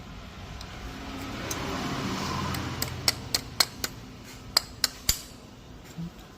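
Sharp metallic clicks and taps, about six of them in two seconds, as metal parts and tools knock together while a new bearing and clutch plate are fitted to a car AC compressor. Before the clicks, a low engine-like hum swells and fades.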